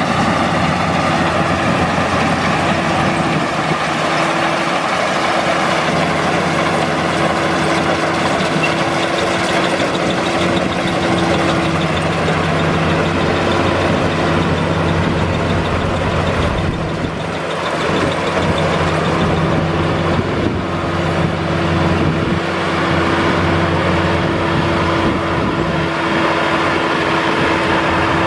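Maxxi Bimo 102 rice combine harvester running steadily while harvesting, a continuous engine hum with a brief dip about two-thirds of the way through.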